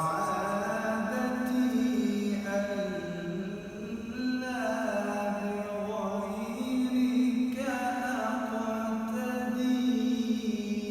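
A man singing an Arabic devotional nasheed to the Prophet, unaccompanied. He draws out long, held notes that slide and waver from pitch to pitch, in a few unbroken phrases.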